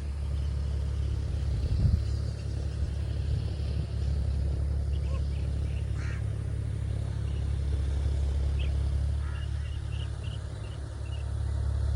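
A steady low rumble, with a few faint short animal calls in the second half.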